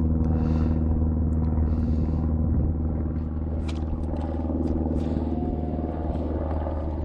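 Boat motor running at a steady low hum, with a few light clicks over it.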